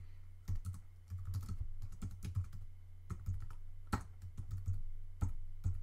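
Typing on a computer keyboard: irregular key clicks, a few to several a second, over a steady low hum.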